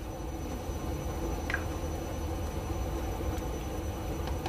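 Pot of thick peanut stew (kare-kare) simmering on an induction cooktop while a plastic ladle stirs it: a steady low hum and bubbling with a thin high whine, and a few faint scrapes of the ladle.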